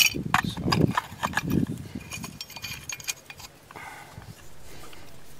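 Clicks and scraping knocks of a wrench gripping and turning a PVC male adapter threaded into a brass coupler, mostly in the first couple of seconds, then quieter handling.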